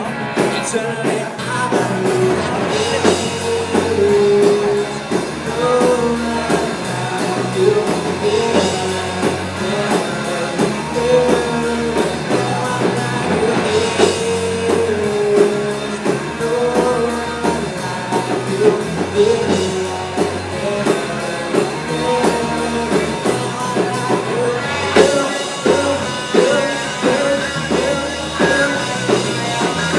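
Live Christian rock band playing a song: electric guitars, bass and drum kit with a steady beat, and a singing voice carrying the melody.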